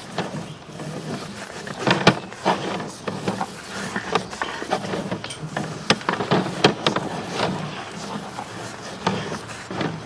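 Sewer inspection camera's push cable being pulled back, with irregular clicks and knocks from the cable and reel over a steady low hum.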